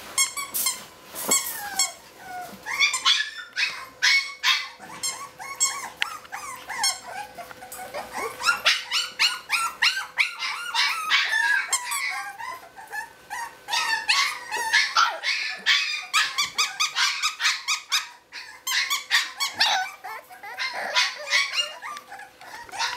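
Olde English Bulldogge puppies barking and yapping in a rapid, high-pitched string of short calls.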